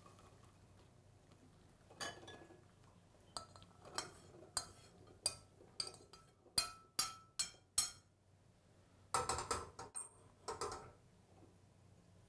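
Metal spoon clinking against a stainless steel pot and mesh strainer while boiled black soybeans are scraped out to drain: about ten sharp taps spaced roughly half a second apart, then a quicker cluster of clinks near the end.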